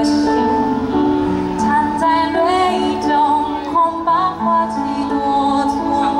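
A woman singing a song over instrumental accompaniment, with long held notes.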